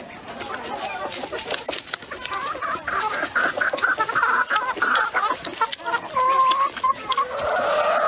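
Chickens clucking close by, in short wavering calls, over close-up eating sounds: chewing and chopsticks clicking against a bowl.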